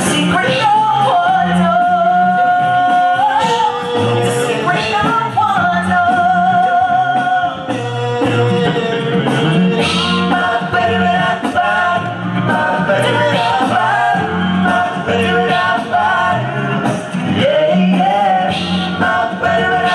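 Male a cappella group singing a pop song: a sung melody over close vocal harmonies and a pulsing sung bass line, with short sharp percussive hits on the beat.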